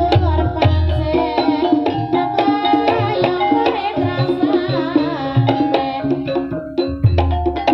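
Javanese gamelan music accompanying an ebeg dance: kendang hand-drum strokes over ringing metallophone tones, with deep low strokes near the start and near the end, and a voice singing in the middle.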